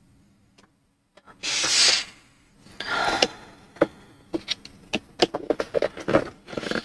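A cardboard box of coloured pencils being handled: two short rubbing slides of hand and cardboard, then a run of light clicks and taps as the box is tilted and lifted.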